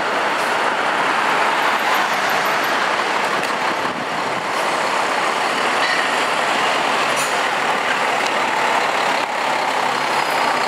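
Fire engine's diesel engine running loud and steady as the rig pulls out onto the street.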